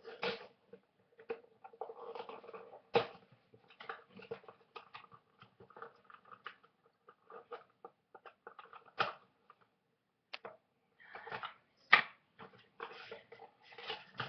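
Blind-box toy packaging being opened by hand: irregular crinkling and rustling with scattered sharp clicks and knocks, the sharpest about three, nine and twelve seconds in.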